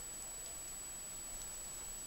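A few faint, light ticks of a plastic stylus tapping a mobile phone's touchscreen, over a steady low hiss with a thin high whine.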